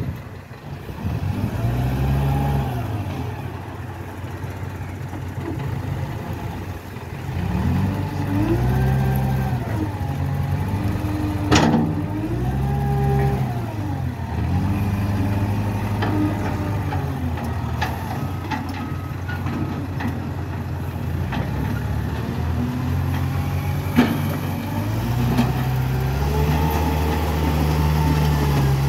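Wheel loader's diesel engine running, its pitch rising and falling again and again as it is revved while driving and working the bucket. A sharp knock sounds about eleven seconds in, and another near the end.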